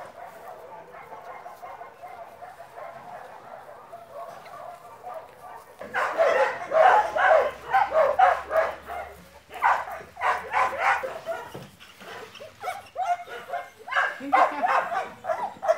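Dog whining faintly and steadily, then barking in quick repeated bursts from about six seconds in, with a second run of barks near the end.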